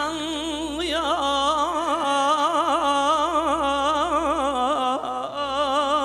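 Male voice singing a long, wavering, ornamented note from a Turkish folk song (türkü), with a sweep upward about a second in, over a steady low accompaniment from the band.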